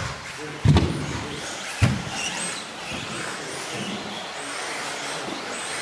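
Radio-controlled 2wd off-road racing cars running, their motors whining up and down in pitch as they accelerate and brake. Two heavy thumps come about a second apart near the start.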